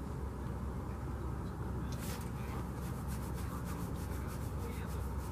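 Spinning reel being cranked to wind in line, a fast rhythmic rasping tick that starts about two seconds in, over a steady low rumble.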